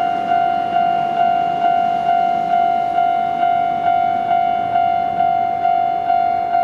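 Japanese railway level-crossing warning bell ringing its repeated electronic ding, about two strikes a second: the crossing is signalling an approaching train.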